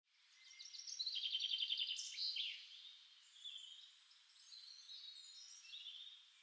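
Birdsong: a fast trill of rapidly repeated high notes in the first seconds, followed by softer, scattered warbling and chirps.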